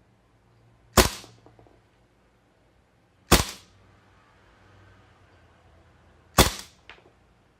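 GHK OTs-14 Groza gas blowback airsoft rifle firing three single shots on green gas, a few seconds apart, each a sharp crack with the bolt's blowback clack. A fainter click follows about half a second after the last shot.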